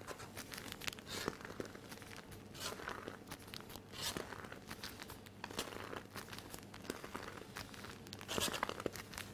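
Soft, irregular crinkling of a plastic piping bag squeezed by hand while batter is piped out, a few rustles louder than the rest.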